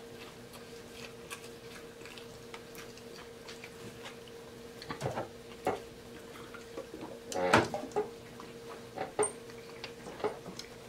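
Close-miked eating sounds: wet chewing and lip smacking on a burger, then gulps from a drink can, the loudest a little past halfway, over a steady low hum.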